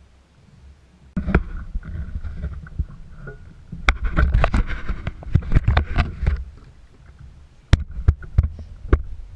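Irregular knocks and bumps on a kayak, starting about a second in, over a low rumble.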